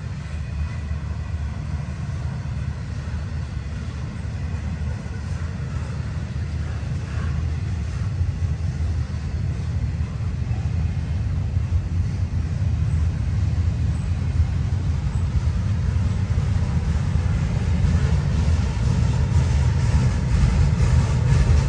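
Florida East Coast Railway intermodal freight train rolling past, its container cars making a steady low rumble that grows gradually louder toward the end.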